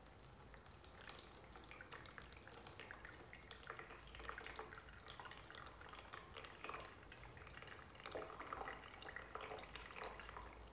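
Water poured from a plastic watering can into the reservoir of a hydroponic planter through its filling opening: a faint trickle with small drips and splashes, a little stronger about four seconds in and again around eight seconds.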